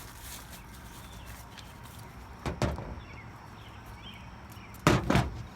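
Handling knocks and clunks as a camera is set up on a small tripod: a short knock about two and a half seconds in, then a louder cluster of sharp knocks near the end.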